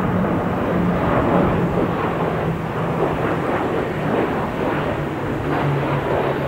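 Two Irkut MC-21 jet airliners flying past together, their turbofan engines making a loud, steady roar with a low hum underneath that settles slightly lower in pitch a couple of seconds in.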